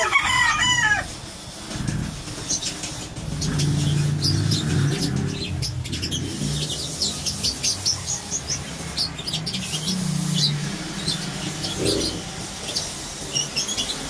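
A rooster crows briefly right at the start, the loudest sound here. Small birds then chirp repeatedly over a low background rumble.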